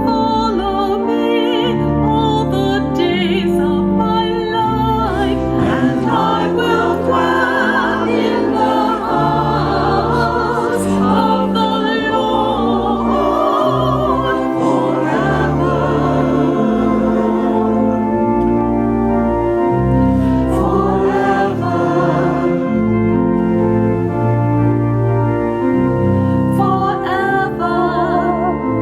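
A choir singing a hymn with organ accompaniment in steady held chords.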